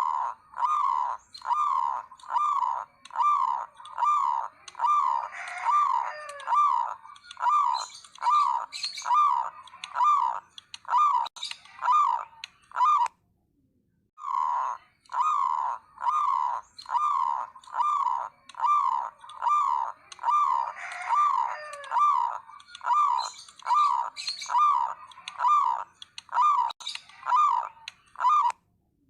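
Local zebra dove (perkutut) calling in the rapid, repetitive 'nguwor' style: a steady run of short cooing notes, about one and a half a second, that breaks off once about halfway and starts again.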